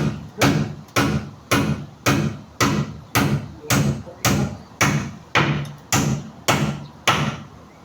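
Steady hammering on a house construction job: about fourteen sharp blows at roughly two a second, each with a short low ring. The blows stop near the end.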